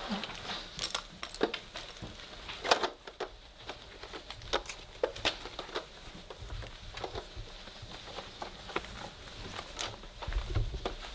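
Three-week-old Weimaraner puppies moving and tussling on a fabric blanket: irregular light pattering, scratching and rustling of paws and claws on the bedding, with scattered sharper clicks, the sharpest about two and a half seconds in.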